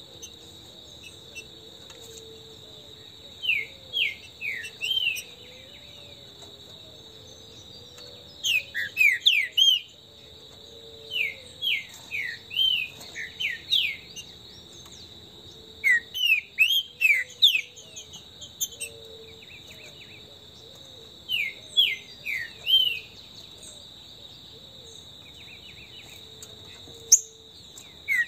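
Green-winged saltator (trinca-ferro) singing: five short phrases of quick, clear whistled notes, a few seconds apart. A steady high insect trill runs underneath.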